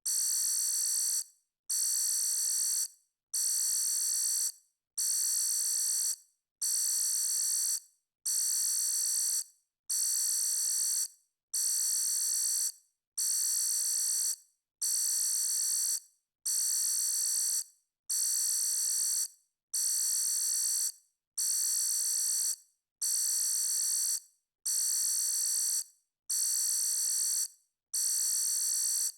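Electronic alarm sounding in a steady repeating pattern: a high-pitched buzzing tone about a second and a half long, over and over roughly every 1.7 seconds, with short gaps between.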